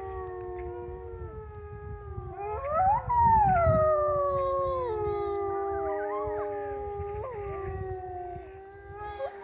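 Several grey wolves howling in chorus: long, overlapping howls held at different pitches, with one voice rising steeply about three seconds in and then sliding slowly down.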